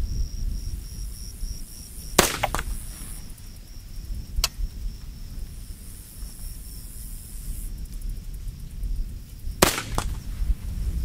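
Daewoo K1A1 5.56 mm rifle firing two single shots about seven seconds apart. Each shot is followed about a third of a second later by a fainter sharp crack from the bullet hitting a steel target at 100 meters.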